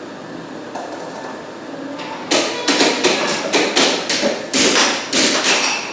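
Air hockey rally: the plastic puck clacking sharply off the mallets and table rails, about ten quick hits at roughly three a second starting about two seconds in.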